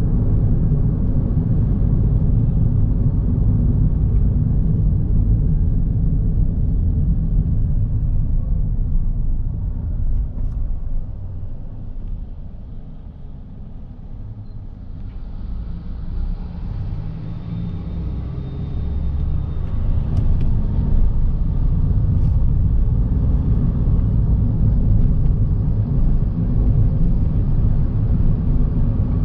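Car driving on a city road: a steady low rumble of engine and road noise. It drops for a few seconds around the middle, then rises again.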